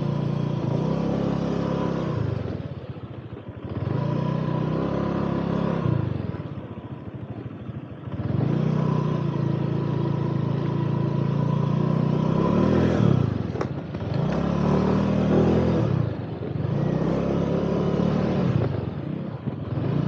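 Honda Click 125 scooter's single-cylinder engine pushing through mud. The throttle is opened and eased off about five times, the pitch rising with each surge and falling away between them. There is a single sharp click about 13 seconds in.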